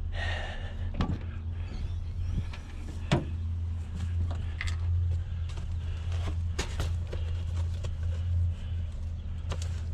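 Van engine idling with a steady low hum, over scattered clicks and knocks, the sharpest about three seconds in.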